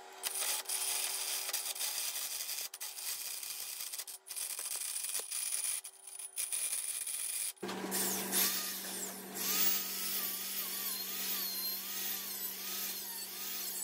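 WEN benchtop drill press running a hole saw into steel tubing: a steady motor hum under a scraping cut. About seven and a half seconds in, this gives way to a handheld rotary tool grinding on the pipe, its whine wavering in pitch as it bears on the metal.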